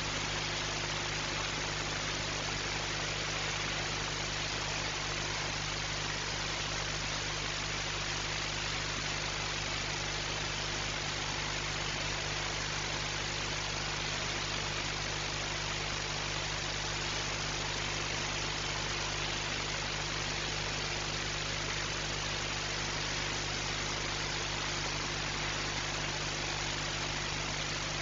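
Steady hiss with a low, even hum under it. It does not change and holds no calls or knocks.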